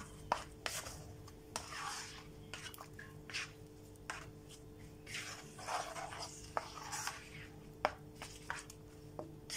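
Spatula stirring and scraping thick onion-tomato masala paste around a wok as it fries in oil: irregular scrapes with a few sharp clicks of the spatula against the pan. A steady low hum runs underneath.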